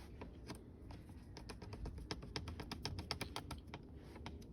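Rapid run of light clicks, several a second, from a screwdriver tightening the small bolts that hold a car's shift boot trim.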